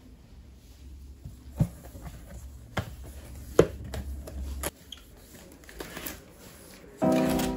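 A cardboard shipping box handled and its flaps folded shut, with a few sharp knocks, then packing tape pulled off its roll across the lid. Piano music comes in near the end.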